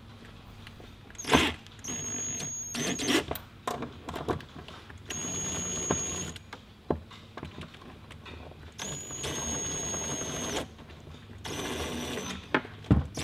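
Cordless screw gun driving screws into a plastic rope-ladder step clamp in four short runs, each a steady motor whine lasting one to two seconds, with a few knocks of handling between them.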